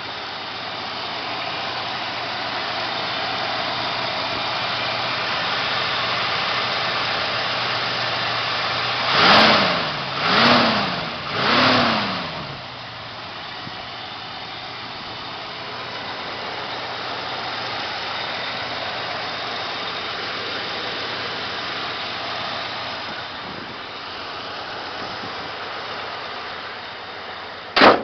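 Rebuilt Jeep engine running steadily, revved three times in quick succession about a third of the way in, each rev rising and falling back. A single sharp knock sounds right at the end.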